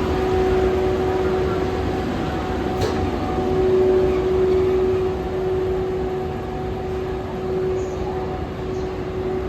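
EF81 electric locomotive hauling E235 series cars out on a delivery run. A steady hum over a low rail rumble, with a single sharp click about three seconds in.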